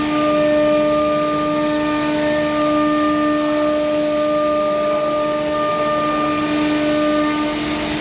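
MUTLUCAM 2128 CNC router running, its spindle giving a steady high whine over a hiss of cutting.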